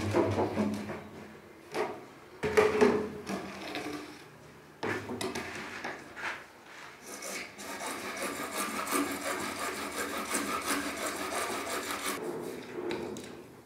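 Hacksaw blade sawing through orange PVC drain pipe by hand, with quick, even back-and-forth strokes for about five seconds in the second half. Earlier there are a few sharp hollow knocks as the plastic pipes and fittings are moved about and set down.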